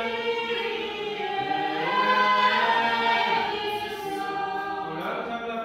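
A choir of young women singing an Orthodox liturgical chant unaccompanied, in long held notes; its sound recalls Old Believer church singing.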